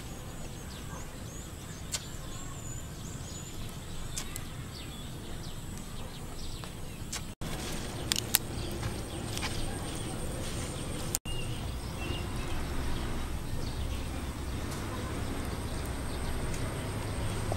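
Outdoor background with a steady low rumble and a faint, steady high tone, scattered short bird chirps and a few light clicks. The sound drops out for an instant twice at edit cuts.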